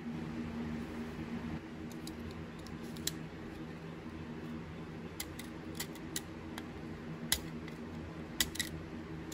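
Utility knife blade scraping rust off the steel blade of a carpenter's square in short, sharp strokes, beginning about two seconds in, over a steady low hum.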